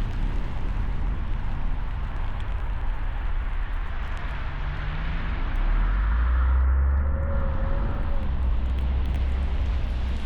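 Car driving in a snow storm: steady engine and road noise with a deep rumble. About six seconds in the low rumble grows louder for a couple of seconds, with a faint rising whine.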